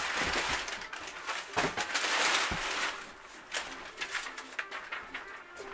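Brown kraft packing paper rustling and crinkling as it is handled and pulled from a cardboard shipping box, loudest over the first three seconds, with a few sharp knocks.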